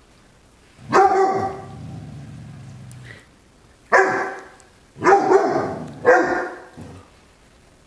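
Great Dane puppy barking fearfully at a feather cat toy: four sharp barks, the first followed by a low growl lasting about two seconds.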